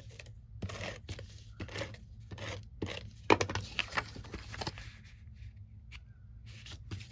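Cardstock being handled: a run of short rustles, scrapes and light taps as paper panels slide and are pressed down on the work surface, with one sharper click about three seconds in.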